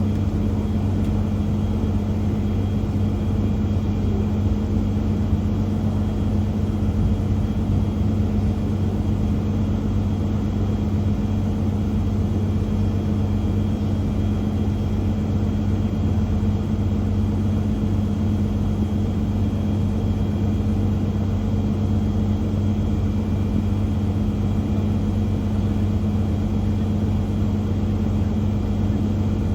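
DD200 diesel-electric locomotive's engine idling with a steady, even drone.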